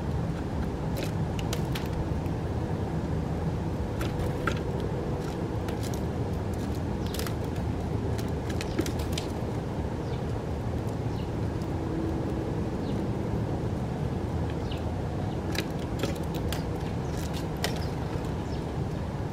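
House sparrows giving short, scattered chirps, a few at a time, over a steady low rumble of distant road traffic.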